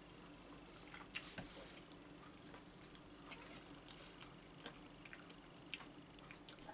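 Faint, scattered wet clicks and squishes of someone eating with their hands, a few at a time over low room tone.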